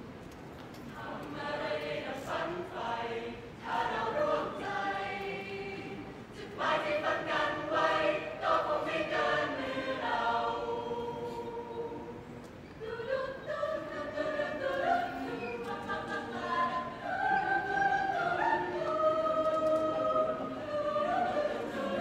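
Student choir singing in several parts, coming in about a second in, with short breaks between phrases.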